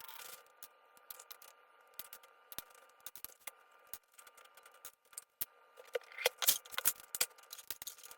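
Cardboard jigsaw puzzle pieces being handled, with scattered light clicks and rattles that grow busier and louder about six seconds in.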